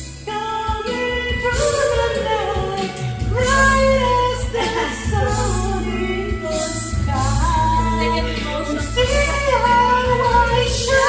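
Karaoke: a man singing a melody into a handheld microphone over a music backing track with a steady low accompaniment.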